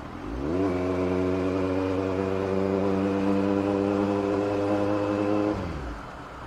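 Kawasaki Z900 inline-four engine under throttle: the note climbs for half a second, then holds steady at an even cruising speed for about five seconds. Near the end the throttle closes and the note drops away.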